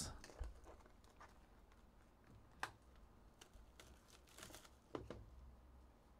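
Faint crinkles and light clicks of a clear plastic wrapper being handled and pulled off a sealed trading-card box: a handful of short, spread-out ticks, the sharpest about two and a half seconds in and again near five seconds.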